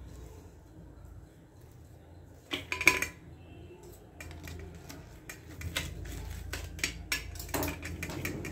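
Knife and hands working a fried bread pakora on a stainless steel plate: metal clinks, taps and scrapes. There is a loud clatter about three seconds in and a run of quick knocks later on.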